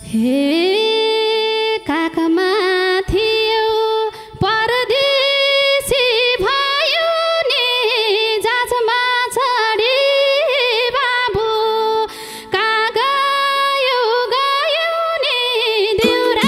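A woman singing a Nepali lok dohori folk song into a microphone. Her long, ornamented melody slides between notes and opens with an upward glide.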